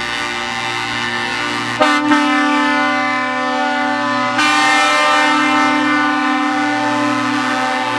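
Truck air horns blowing long held chords. A new horn chord starts about two seconds in, and the sound gets louder about four and a half seconds in.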